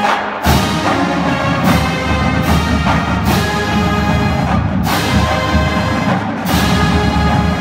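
Marching band brass, with rows of sousaphones, playing loud chords together, with strong accents punched out roughly every second.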